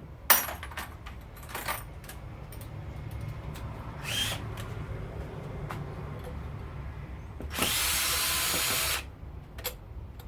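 Power drill fitted with a screwdriver bit spins up and runs for about a second and a half near the end, after a few clicks and knocks of tools being handled.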